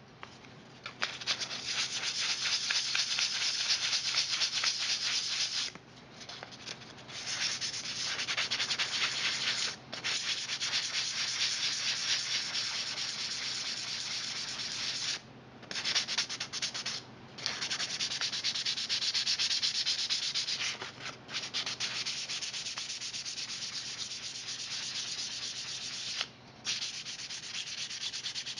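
Sandpaper rubbed by hand in rapid back-and-forth strokes over a 3D-printed part's iron paint coat, a dense scratching that stops briefly several times.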